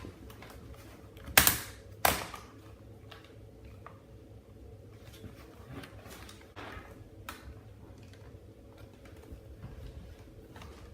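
Plastic clicks and taps from handling an HP dv6809wm laptop while its battery is taken out: two sharp clicks about a second and a half to two seconds in, then softer scattered clicks and knocks.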